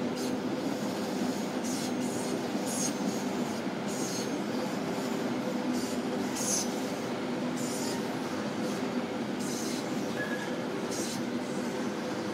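A rolling-highway freight train, low-floor wagons loaded with lorries, running past on the rails with a steady rumble and hum. Short high wheel squeals come about once a second.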